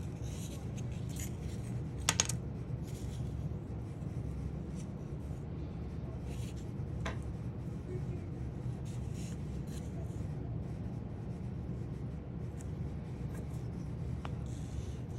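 Light handling sounds of wood and tools on a workbench: scattered faint scrapes and clicks over a steady low hum, with a short burst of sharp clicks about two seconds in.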